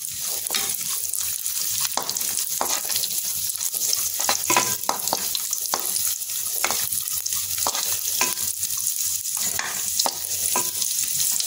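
Cashews and raisins sizzling in hot ghee in a nonstick kadai, with a steady frying hiss. A wooden spatula stirs them, scraping and knocking on the pan many times.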